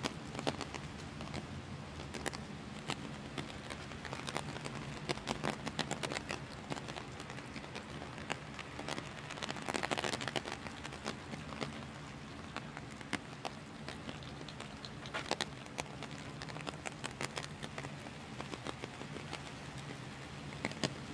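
Heavy rain falling steadily, with dense irregular drips and taps, heavier for a moment about ten seconds in, over a low steady city hum.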